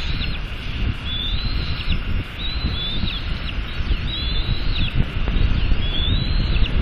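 Bald eaglets chirping during a feeding, a high, arching peep about once a second, over a low rumble of wind on the microphone.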